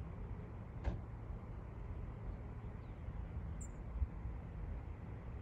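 Steady low outdoor rumble, with a faint click about a second in.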